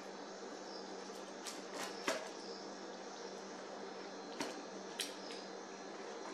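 Metal pizza wheel rolling through a baked pizza crust on a wooden board, giving a few sharp crunches and clicks, a cluster about one and a half to two seconds in and two more near four and a half and five seconds. A steady low hum runs underneath.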